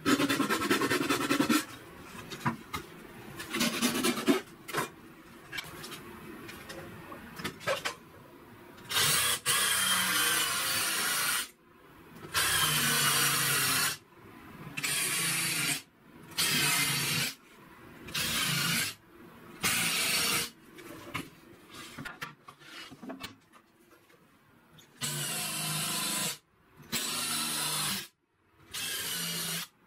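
A hand file scraping across a wooden joint in a few quick strokes, then a Makita cordless drill boring countersunk holes into wooden boards in about eight short runs of a second or two each.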